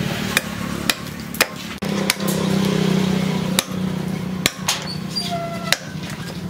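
A large chopping knife striking and hacking at a wooden root held on a stump: sharp, separate chopping blows at an irregular pace, roughly one a second. A steady low hum runs underneath.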